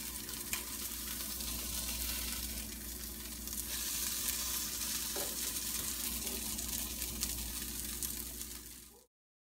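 Zucchini fritters sizzling as they fry in a greased, heated stainless steel pan, a steady hiss that grows a little louder a few seconds in and cuts off suddenly near the end.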